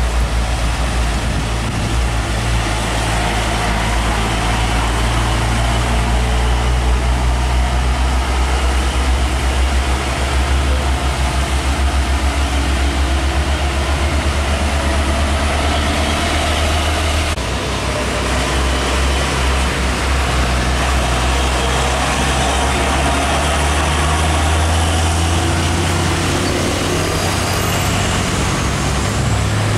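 Heavy truck's diesel engine running steadily with a deep rumble as a Hino 500 truck and its trailer drive past and away, with a hiss of tyres and spray on the wet road and falling rain.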